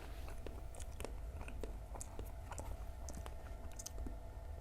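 Close-miked chewing of gorengan fritters and raw chilies, with irregular small wet clicks and crunches.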